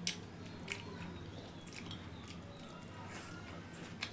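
Faint wet squishes and scattered small clicks of fingers mixing rice and curry on steel plates.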